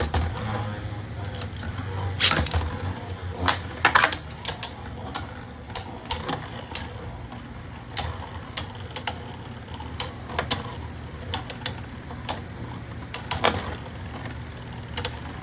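Beyblade Burst spinning tops battling in a plastic stadium, clacking against each other and the stadium walls in irregular sharp clicks, some louder hits among many light ones.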